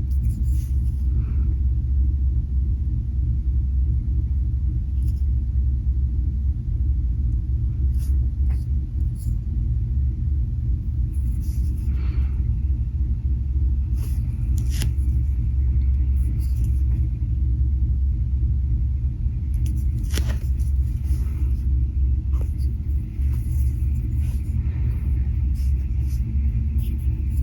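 Steady low rumble, with faint scattered scratches and taps of alcohol markers on paper.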